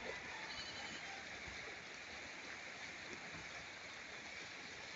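Steady seaside ambience at low tide: an even hiss of water gently washing at the shore, with no distinct events.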